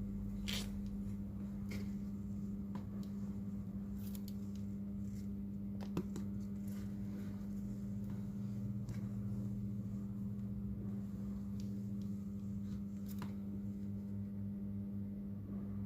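A steady electrical hum with a fixed low tone, with scattered light clicks and taps from small repair tools handling the phone.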